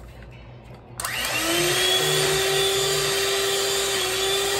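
Electric hand mixer switched on about a second in, its motor whine rising briefly as it spins up, then running steadily as the beaters whip heavy cream with vanilla and sugar.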